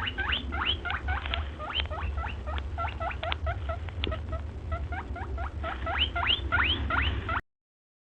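Rat squeaking: a rapid series of short, high, upward-sliding squeaks, several a second, over a low rumble. It cuts off abruptly about seven seconds in.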